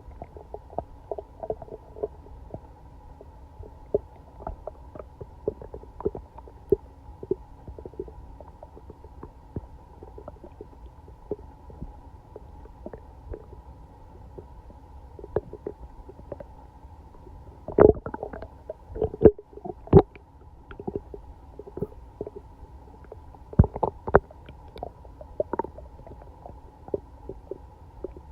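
Human stomach and intestines gurgling: a steady run of small, irregular bubbling squelches, with several louder gurgles about two-thirds of the way through. It is an upset gut the day after a night of being sick, sounding as if something is swimming in the belly.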